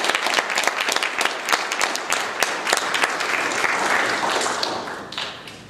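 Audience applauding, many hands clapping together, the applause dying away near the end.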